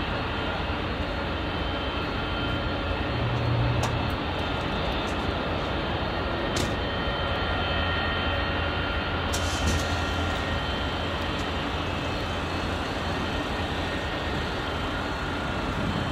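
Airbus A380 climbing out after takeoff: the steady noise of its four jet engines, with a few faint high tones in it.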